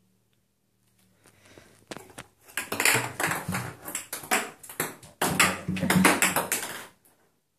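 A ping pong ball clattering and skittering rapidly around an empty bathtub as a cat bats and chases it. It starts about a second in and stops shortly before the end.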